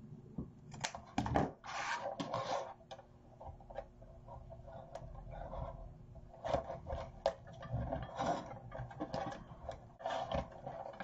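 Satin ribbon rustling and crinkling as it is handled and bunched into a bow, with scissors snipping the ribbon near the start and irregular clicks and scrapes as the bow is tied off.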